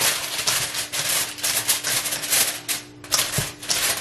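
Aluminium foil crinkling and crackling in dense, irregular bursts as it is pressed and crimped by hand around the rim of a metal mixing bowl.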